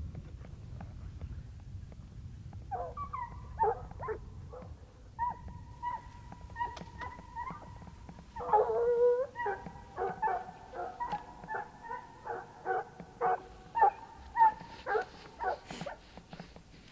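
A pack of hunting hounds baying as they run a mountain lion's track, the calls starting about three seconds in and thickening into several overlapping voices from about eight seconds on.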